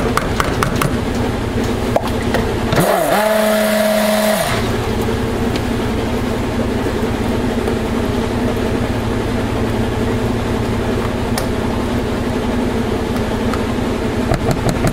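Steady rumble of a washing machine running throughout. About three seconds in, a stick blender is switched on in the soap batter for a short burst of about a second and a half, its motor whine rising as it starts and falling as it stops.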